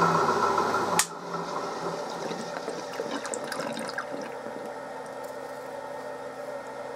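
A 1938 Bridgeport M-head milling machine running an end mill through a finishing cut with coolant pouring over the work. The sound cuts off suddenly with a click about a second in. After that there is only a faint hiss with light ticks.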